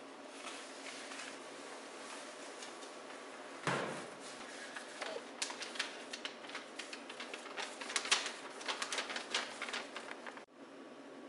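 A single thump about four seconds in, followed by several seconds of crisp paper crackling and rustling as an envelope is torn open and a printed photo is pulled out.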